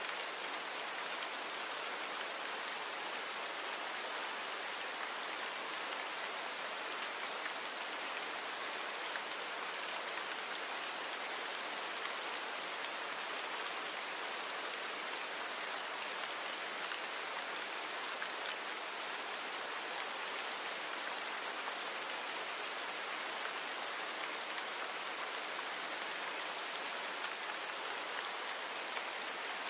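Steady rain falling, an even hiss of drops on a surface with faint scattered individual drop ticks, constant in level throughout.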